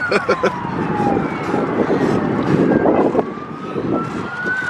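An emergency vehicle's siren wailing, its pitch sliding slowly down, then climbing back up near the end.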